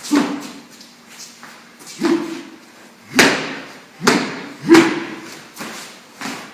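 About six heavy thumps at uneven intervals, each ringing briefly in a large room: feet stamping on a floor during Xing Yi Quan rooster-form footwork.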